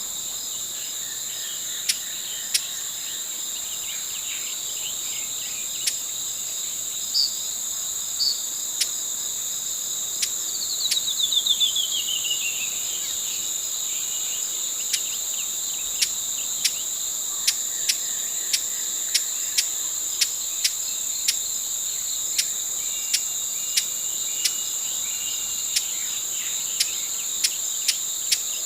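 Broad-billed hummingbird giving sharp, dry tick notes, more often in the second half, and a quick chattering run that falls in pitch about ten seconds in. A steady, high-pitched insect drone runs underneath.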